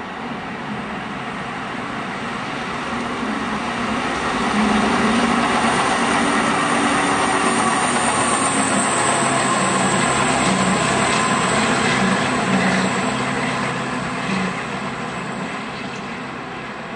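Self-propelled on-track maintenance machine running past on the rails, its diesel engine and wheels building up, loudest for several seconds as it goes by close, then fading as it moves away.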